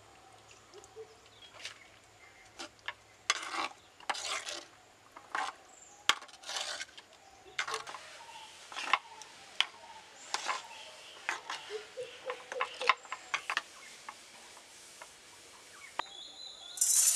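Metal spoon clinking and scraping against an earthenware bowl while stirring chicken in its marinade: an irregular run of sharp clicks and short scrapes. A brief louder rush of sound comes near the end.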